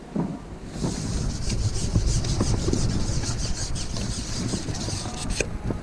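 Carbon match-fishing pole being slid back through the hands while it is unshipped: a rasping rub with quick, regular ticks, starting about a second in and stopping shortly before the end, over a low handling rumble.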